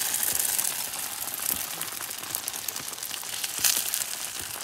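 Beaten egg with chopped onion sizzling and crackling in hot mustard oil on an iron tava, as a dense hiss of tiny pops. There is one sharper crackle about three and a half seconds in.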